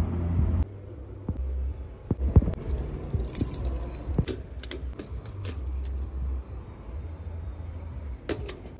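A bunch of metal keys on a ring jangling in the hand, in a run of bright clicks and jingles. Two sharp clicks follow near the end, with a low rumble underneath throughout.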